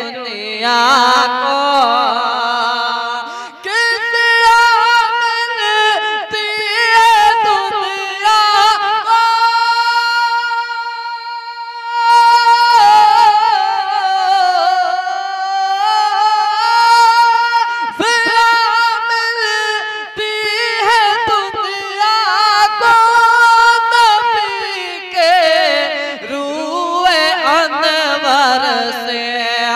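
A man singing a naat (Urdu devotional song in praise of the Prophet) unaccompanied, drawing out long wavering notes with vibrato and no clear words. About a third of the way in he holds one high note steady for some three seconds.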